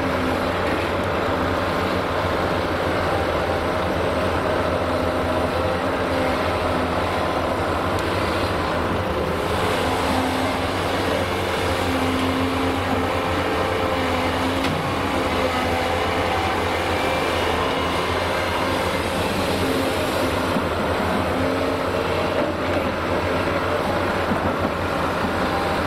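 Volvo EC480D L crawler excavator's diesel engine and hydraulics running steadily under load through a dig, swing and dump cycle, with a held hum whose pitch comes and goes as the hydraulics work.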